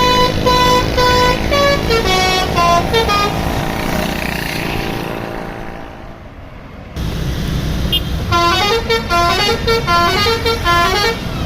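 Tour bus's basuri musical horn playing a tune of steady stepped notes over the rumble of the bus engine. The tune fades to a quieter rush about five seconds in, and after a sudden jump back a new run of horn notes starts about eight seconds in.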